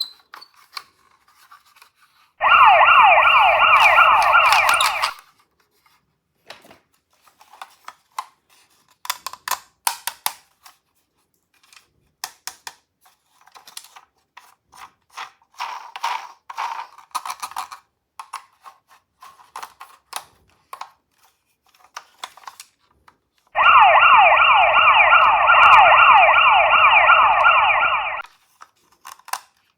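Toy ambulance's electronic siren sounding in two bursts: one about two and a half seconds in, lasting a couple of seconds, and a longer one near the end, each a fast-warbling wail. Between them come scattered clicks and rattles.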